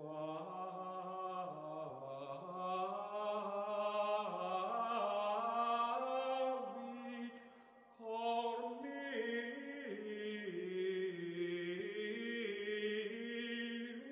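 Slow chant sung by men's voices, in long held notes that step from pitch to pitch. The phrase fades away about seven seconds in, and a new phrase begins about a second later.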